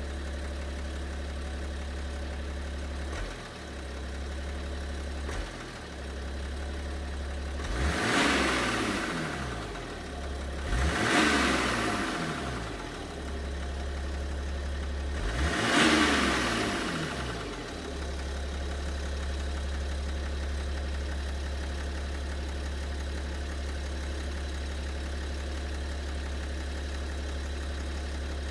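BMW 730d's M57 3.0-litre straight-six diesel idling, blipped three times about eight, eleven and sixteen seconds in, each rev rising and falling back, then settling to a steady idle. The engine has a mysterious knock that its owner cannot explain.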